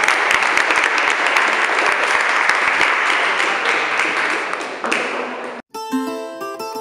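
Audience applause, many hands clapping together, which cuts off abruptly about five and a half seconds in. Plucked-string music starts right after.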